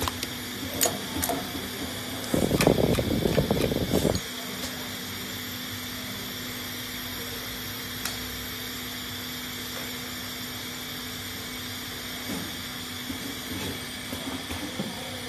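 Automatic wireless-charging coil winding machine running: a steady hum with a constant high tone, a few mechanical clicks, and a loud rattling stretch of about two seconds, starting about two seconds in.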